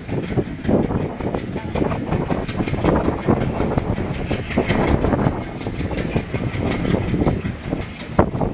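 An express train of passenger coaches, hauled by a WDM3A diesel locomotive, rolling past through a junction. The wheels clatter irregularly over rail joints and points under a steady low rumble.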